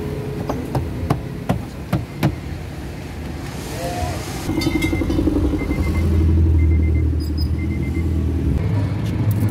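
Plastic trim clips clicking and snapping about six times as the rear cargo-sill trim panel is pried up. Then a car's chime beeps about once a second over a steady low hum.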